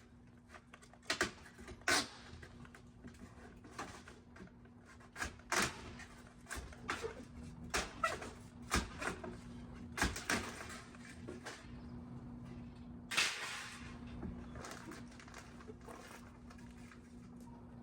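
Scattered knocks, taps and clacks at uneven intervals, with a longer scrape about two-thirds of the way through, over a faint steady hum: the sound of handling building materials and tools on a construction job.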